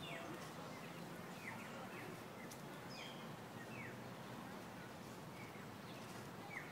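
Birds calling with short, quick downward-sliding chirps, several times and irregularly, over a steady low background hum.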